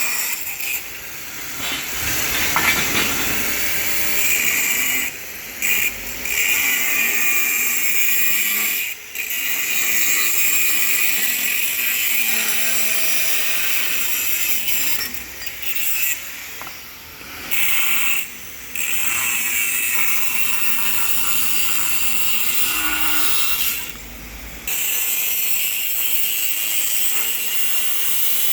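Makita angle grinder with an abrasive cut-off disc cutting through steel tube: a loud, continuous high grinding hiss that eases off briefly several times as the disc's load changes.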